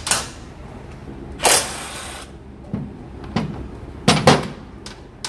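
Metal hand tools and bolts being handled under a motorcycle: a series of sharp clinks and knocks, with a short rasping burst about a second and a half in.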